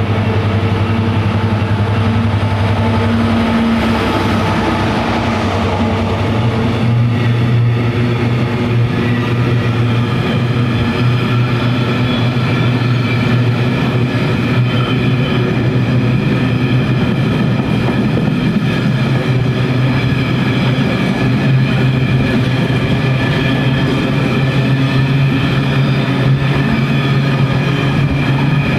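Diesel locomotive engine running loud and steady. Its note steps up about three seconds in and again about seven seconds in, then holds.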